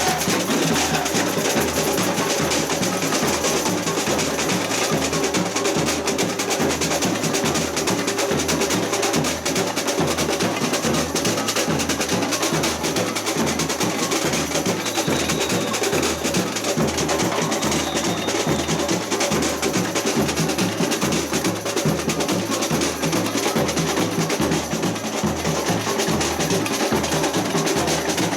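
Samba batucada percussion ensemble playing a steady, driving rhythm: deep drum strokes repeating evenly under snare drums and clacking small percussion.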